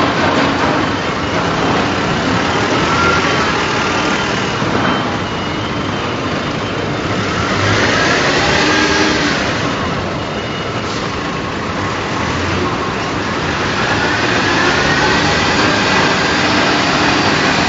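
Loud, steady industrial machinery noise from the aluminium-melting plant's equipment, with a few faint rising and falling whines.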